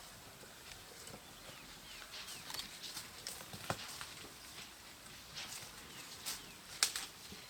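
Faint outdoor ambience of scattered sharp clicks and snaps, with a few short high chirps.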